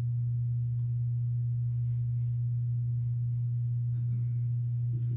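A steady low hum, one unchanging tone with fainter overtones above it, and no speech.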